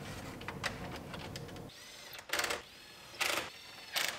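Handheld power drill-driver driving the screws that fasten a truck's instrument cluster into the dash: three short spins, each rising and falling in pitch, starting about two seconds in. Before them, light clicks as the cluster is fitted into place.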